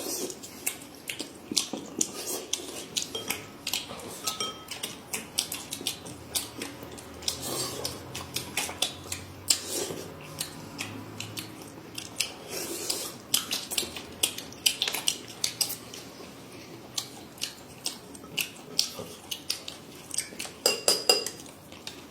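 Eating utensils clicking and tapping against plates and bowls during a meal, many irregular small clicks, with faint chewing.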